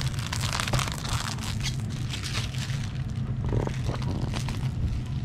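Clear plastic protective film being peeled off a sheet of chrome vinyl wrap, crackling and crinkling irregularly as it pulls away and is handled. A steady low hum runs underneath.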